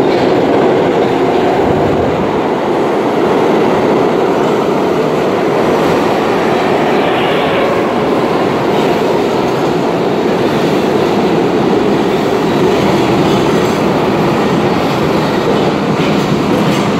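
New York City Subway R32 train of stainless-steel cars running past close by on the near track, its steel wheels rumbling and clattering steadily on the rails.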